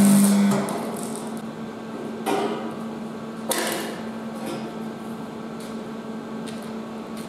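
Arc welding on a steel boat stand: a crackling arc with a strong buzz that cuts off about half a second in. After that a faint steady hum continues, broken by two sharp metal knocks about two and three and a half seconds in.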